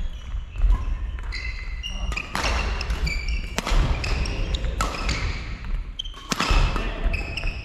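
Badminton doubles rally: sharp racket strikes on the shuttlecock every second or so, sneakers squeaking in short high chirps on the wooden court, and dull footfall thuds on the floor.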